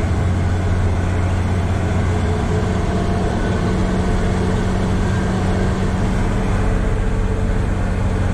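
Truck engine and road noise heard inside the cab while cruising on a highway: a steady low drone with an even rushing hiss over it.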